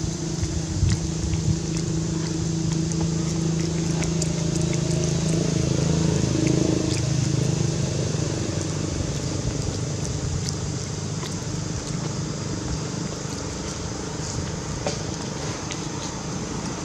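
A steady low motor hum, like an engine running, which swells about six seconds in and fades after about nine, with scattered light clicks over it.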